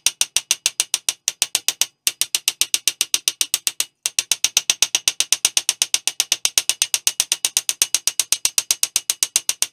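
A hammer striking a piece of sheet metal in rapid, even taps, about six a second, flattening out a raised bead. The tapping pauses briefly twice.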